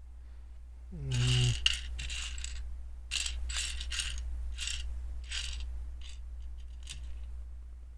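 Small plastic Lego pieces clicking and clattering as they are handled, a run of short rattles a few seconds long over a steady low hum, with a brief hummed murmur about a second in.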